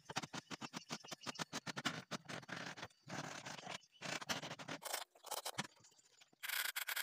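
Hand woodworking on a hardwood board: a steel chisel cutting along scribed lines with a quick run of sharp clicks, then a flat metal file scraping back and forth inside the cut-out in a series of strokes with short pauses between them.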